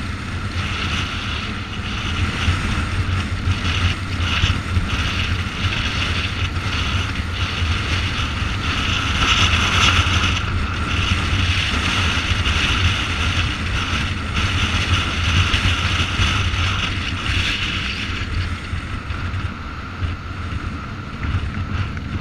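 Motorcycle riding at road speed: a steady low engine rumble under heavy wind rush on the microphone, which swells for a few seconds around the middle.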